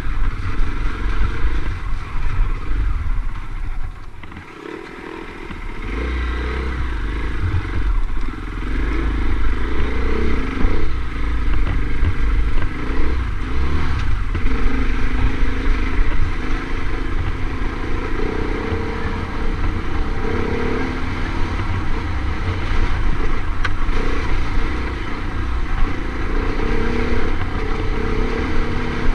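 Off-road motorcycle engine running under changing throttle. It drops away about four seconds in and picks back up about two seconds later, then keeps rising and easing.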